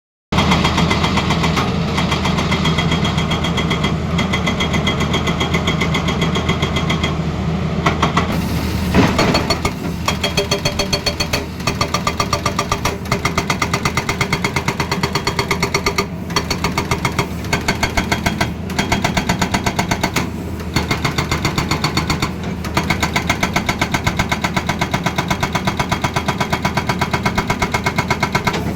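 Tata Hitachi Zaxis excavator's diesel engine running, then its hydraulic breaker begins hammering about nine seconds in, with rapid, even blows and a few short pauses.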